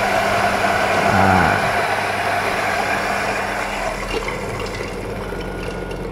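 Maksindo MKS-GRD40A electric coffee grinder running continuously, grinding coffee beans at grind setting 4, a coarse grind, with a steady motor hum under the grinding noise. The grinding gets quieter and thinner from about four seconds in while the motor keeps running.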